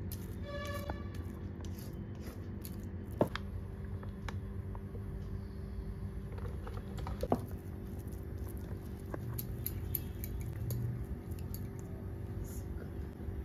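Kitchen handling sounds: a spatula working a semolina-and-potato vada mixture in a glass bowl, a brief ringing clink about a second in, and a few sharp utensil knocks around three and seven seconds in, over a steady low hum.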